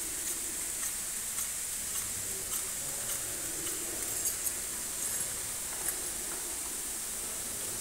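Steady high hiss with scattered light clicks and ticks.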